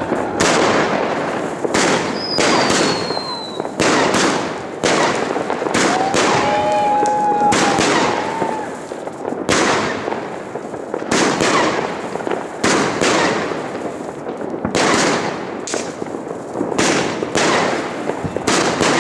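A 61-shot firework battery (25–30 mm cake) firing in sequence: a sharp bang roughly every second, with the sound of the shots and their bursts running on between them.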